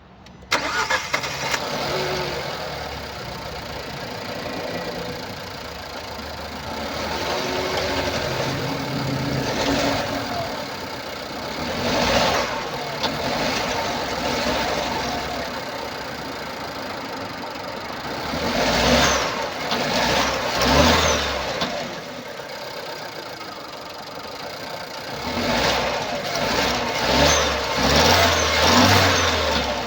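Nissan Pulsar C13's 1.2-litre turbocharged four-cylinder petrol engine starting about half a second in, then idling with several short revs. Its uneven running noise comes from a burnt exhaust valve.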